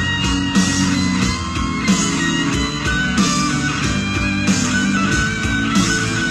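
Live rock band playing a slow song: electric guitar leads over bass and drums, with a cymbal-backed drum hit about every second and a half. In the second half the guitar holds long notes.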